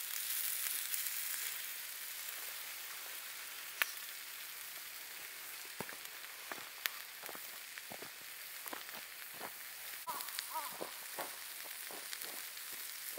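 Pieces of meat sizzling in a small frying pan over a campfire: a steady high hiss, with a sharp crack about four seconds in and scattered pops and crackles from the fire and spitting fat through the second half.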